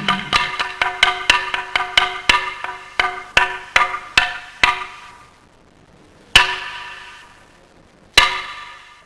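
A struck percussion instrument with a ringing, pitched tone, hit in quick strokes that slow down and fade over about five seconds, then two lone, louder strikes about two seconds apart.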